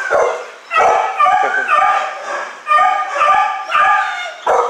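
Several dogs in pound kennels barking and yelping over one another, a steady run of short, high, overlapping calls at different pitches.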